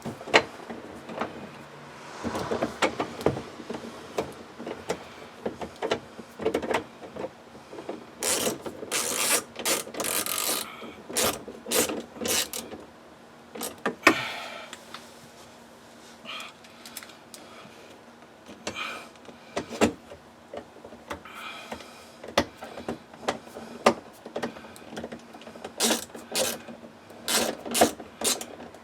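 Socket ratchet clicking in bursts as bolts are run in under a car's outer door handle, with clinks and knocks of tools and metal door parts between the bursts.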